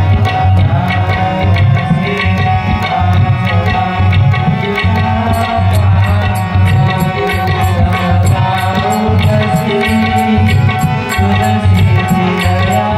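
Tabla playing a steady rhythm with deep bass-drum strokes, over a sustained pitched melodic accompaniment. From about five seconds in, sharp high ticks keep time evenly alongside the drumming.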